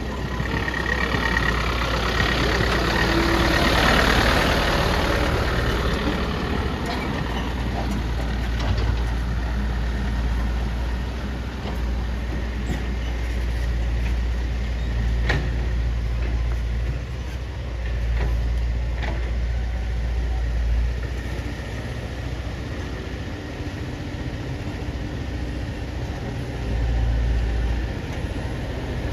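Heavy diesel engine running with a deep, steady rumble that swells loudest a few seconds in, then rises and falls. There are a couple of sharp clicks or knocks around the middle.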